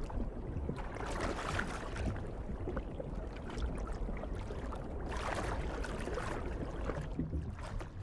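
Water rushing and sloshing, a steady wash that swells twice.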